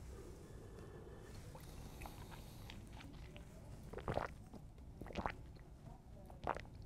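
Quiet mouth sounds of a wine taster working a sip of red wine on the palate: a faint airy slurp early on, then three short mouth sounds about a second apart.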